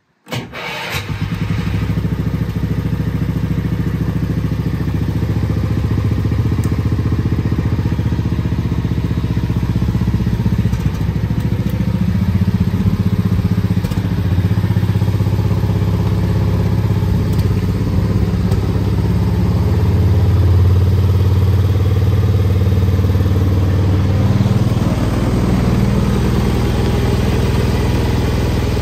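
Porsche 936 Junior children's car's small engine starting from cold: it catches suddenly about half a second in, then runs steadily at idle.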